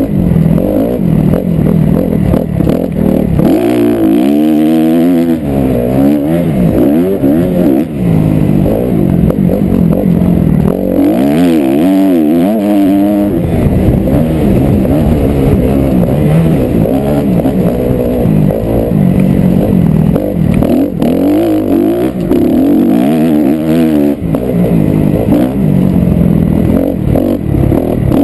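Motocross dirt bike engine revving hard and falling back again and again as the bike is ridden through loose sand, heard close up from the rider's helmet.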